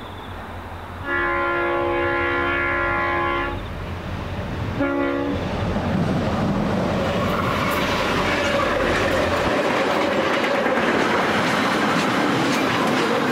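Diesel freight locomotive's multi-tone horn sounding one long blast and then one short blast, the warning for a level crossing. Then the lead diesel locomotives pass and a container train's wagons roll by, their wheels clicking over the rail joints.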